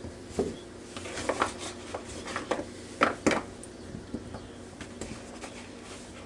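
Small potatoes and carrots being handled and set down on a paper towel on a kitchen counter: light, irregular taps and knocks with soft rustling, the loudest a little after three seconds in.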